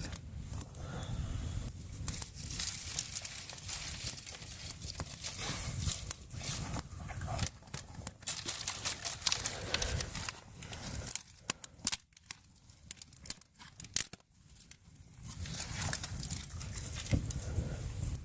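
Campfire crackling, with irregular sharp pops and the rustle of sticks being handled and fed in, over a steady low rumble.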